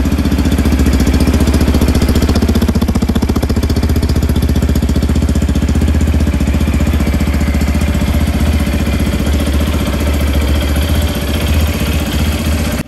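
Yamaha FZ-X's 149 cc air-cooled single-cylinder four-stroke engine idling steadily through its exhaust, an even, rapid beat of firing pulses.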